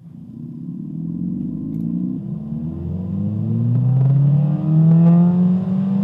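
Playback of a recorded Ford Fiesta ST 1.6-litre turbocharged four-cylinder engine accelerating at wide-open throttle, pitch rising steadily as it revs to about 5,400 rpm. The Sound Symposer is off: this is the raw engine sound, without the induction noise it pipes into the cabin.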